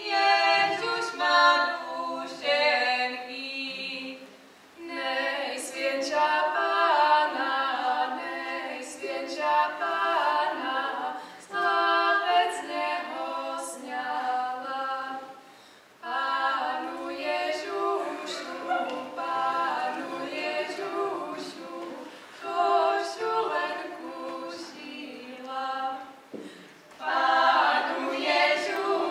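A folk choir singing a cappella in several parts, line by line, with short breaks between the phrases.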